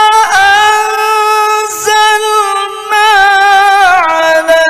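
A male qari chanting the Quran in melodic mujawwad style through a microphone, with long high held notes and wavering turns and brief breaks for breath. The pitch steps down to a lower held note about four seconds in.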